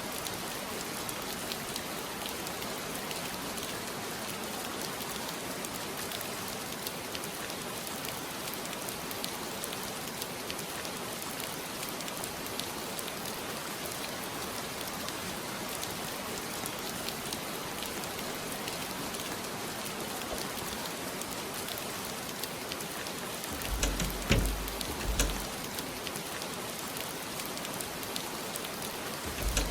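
Steady rain during a storm, an even hiss. Near the end come a few short, deep low thumps.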